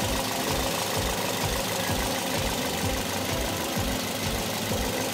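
Toyota Yaris 1NZ-FE inline-four engine idling at low rpm with an uneven low pulsing beat: the shaky, dropping idle that follows disconnecting the battery.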